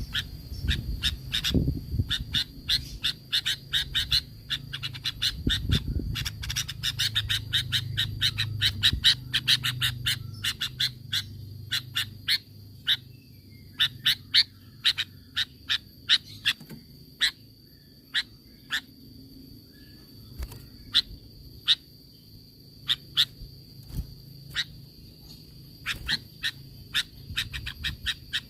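Sooty-headed bulbul (kutilang) giving rapid bursts of sharp, short chattering call notes, the 'tembakan' bursts used to provoke other bulbuls into answering. Dense for the first twelve seconds or so, then sparser. A steady high-pitched tone runs underneath.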